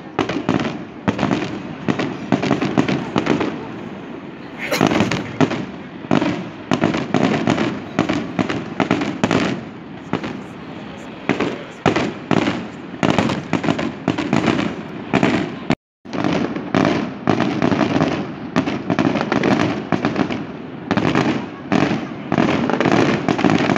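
Fireworks display: aerial shells bursting in a rapid, continuous string of bangs and crackles. The sound cuts out for a moment about two-thirds of the way through.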